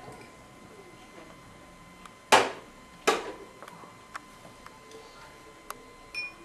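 Two drinking glasses set down on a serving tray one after the other, two sharp knocks a little under a second apart, followed by a few faint clicks.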